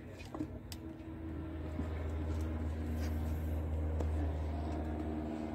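Engine of a nearby vehicle running with a steady low hum, growing louder over a couple of seconds and then easing off. A few light metal clicks come from the cylinder head and valve gear being handled.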